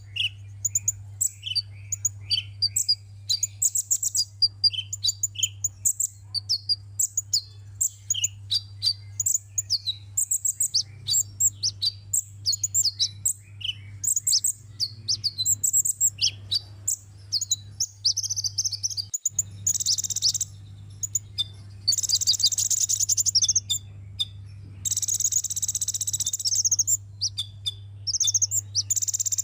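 Sunbird song: a rapid run of high, thin twittering chirps and short glides, giving way in the second half to several longer buzzy trills of a second or two each. A steady low hum runs underneath.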